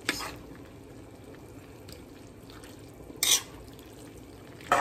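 A metal spoon stirring soup thick with macaroni, vegetables and chicken wings in a large metal pan. The spoon scrapes against the pan three times: at the start, a little past three seconds, and near the end, over a soft background of wet stirring.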